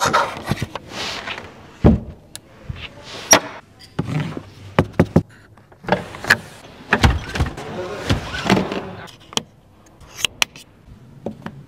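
A run of clicks, knocks and short thuds from hands working the Zeekr 001's trunk fittings: the cargo-floor panel handle lifted near the start, the seatback-release lever worked about halfway through, and the hinged cap of the power outlet flipped open near the end.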